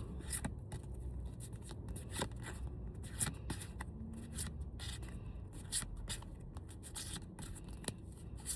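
Pokémon trading cards being handled and flipped through by hand: a run of soft, irregular clicks and rustles.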